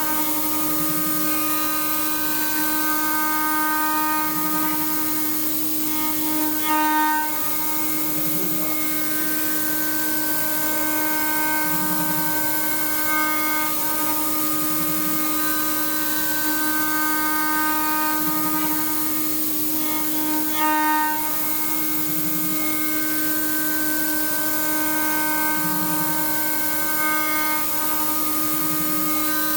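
Spindle of a MILLMAN desktop mini CNC milling machine running with a steady high whine while the cutter mills the outline contour in cartite, with a hiss of cutting over it. Twice, about a third and about two-thirds of the way in, the cutting briefly gets louder.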